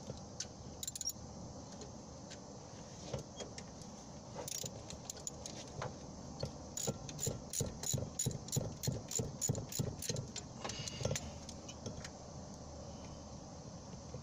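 Socket ratchet working a 14 mm alternator bolt loose: scattered metal clicks and clinks, then an even run of clicks, about three a second, for a few seconds near the middle.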